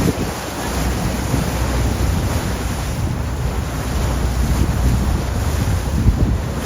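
Wind buffeting the microphone over the steady rush of sea water and rumble aboard a moving dive boat.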